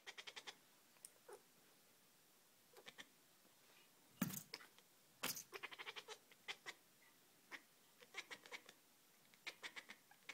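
Cat making dolphin-like clicking chirps at a laser pointer's dot: quick runs of several short clicks each, repeated every second or two, with one louder, fuller call a little past four seconds in.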